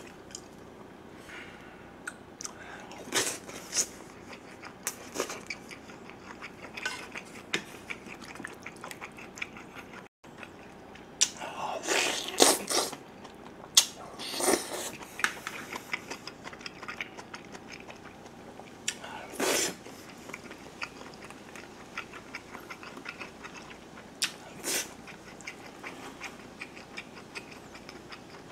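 Close-miked eating: chewing with wet mouth noises, and louder slurps of spicy kimchi stew and chewy potato sujebi dough, most of them bunched together around halfway through.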